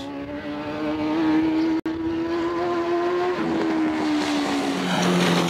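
Suzuki GSX-R sportbike's inline-four engine held at high, steady revs during a slow-speed stunt. It eases off about three and a half seconds in and drops lower near the end, with a rising hiss over the last second or so. The sound breaks off for an instant just under two seconds in.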